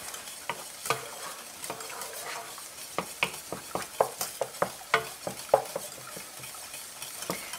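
Wooden spatula stirring and scraping chopped onion and garlic in a nonstick skillet, irregular taps against the pan over a steady low sizzle of the onions frying in oil.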